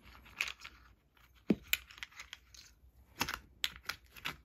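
Clay poker chip rolls and card decks being handled in a hard plastic carry case: scattered clicks and knocks with a light plastic crinkle, the loudest knock about a second and a half in.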